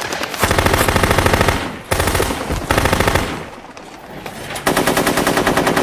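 Automatic gunfire in three long bursts of rapid shots: one starting about half a second in and lasting over a second, a second about two seconds in, and a third near the end.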